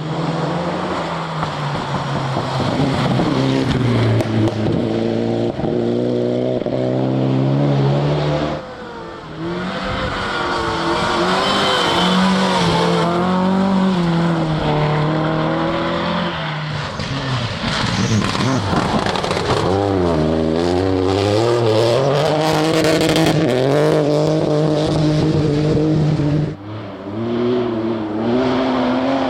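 Rally cars driven flat out on a gravel stage, engines revving hard and falling away through gear changes as each car passes. The sound drops out briefly twice, where one car gives way to the next.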